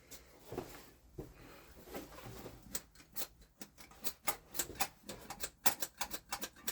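Irregular light clicks and taps, sparse at first and coming faster from about two and a half seconds in, with no engine running.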